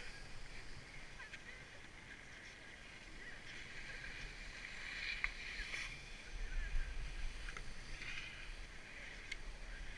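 Skis sliding and scraping over packed, groomed snow, heard from the skier's own camera, the hiss swelling as the skis turn around the middle and again near the end. Wind buffets the microphone with a low rumble a little past the middle.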